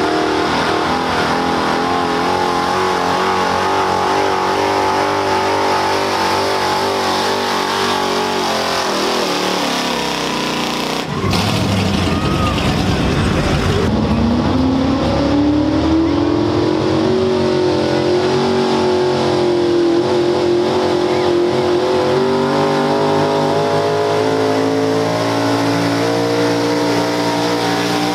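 Pro street pulling pickups running hard at high revs as they drag a weight-transfer sled. First a GMC pickup, whose engine pitch sags a little after about nine seconds. Then, after a cut about eleven seconds in, a Dodge Ram whose engine climbs in pitch over a few seconds and holds high.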